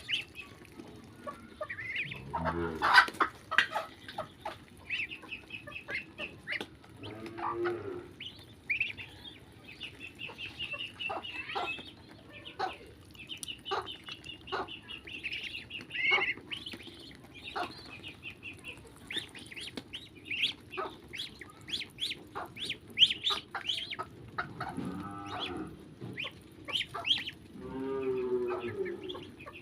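Birds calling: a steady run of short high chirps, with a few longer, lower calls that fall in pitch, about a third of the way in and twice near the end.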